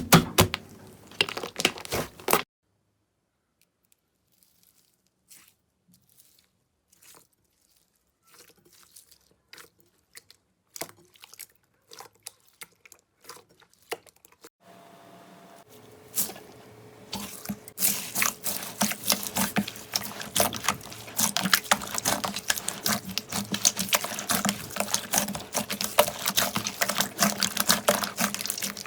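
Slime being squeezed and poked by hand, making dense crackling clicks and pops. These thin out to a few faint clicks for several seconds, then build again about halfway through over a faint steady hum.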